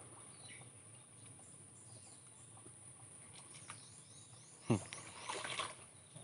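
Quiet forest ambience with faint bird chirps and a steady high hiss, broken about four and a half seconds in by one short, sharp sound.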